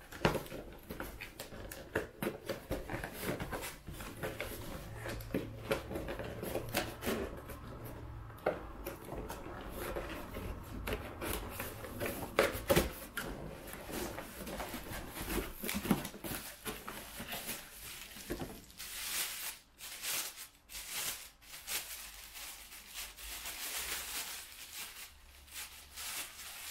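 Cardboard packaging being handled and opened, with scattered clicks and rustles, then a denser stretch of crinkling plastic wrap in the second half as a wrapped part is pulled out.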